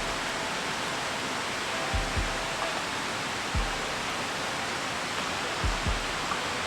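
A steady, even rushing noise, with soft low thumps every second or two.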